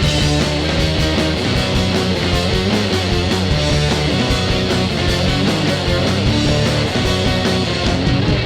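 Live rock band playing a loud, dense instrumental passage with guitar, no singing.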